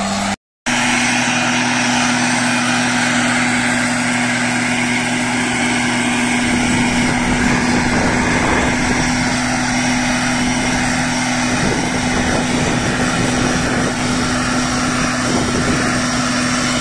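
A tractor engine and a Stihl motorized sprayer's small two-stroke petrol engine running steadily together, the sprayer blowing mist, with a steady high hum over the engine drone. The sound drops out briefly about half a second in.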